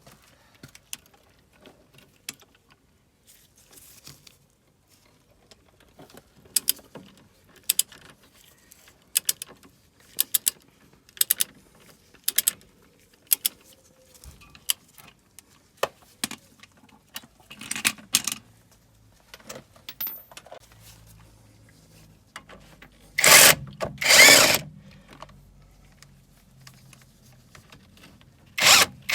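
Sharp clicks about once a second while a fastener is worked on the car's front suspension. Then, about 23 seconds in, a power tool runs in two short bursts of about a second each, and starts another burst at the very end.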